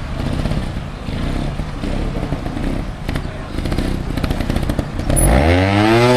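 Trials motorcycle engine chugging unevenly at low revs. About five seconds in it is revved sharply up and held high, under load, as the bike climbs a rock step.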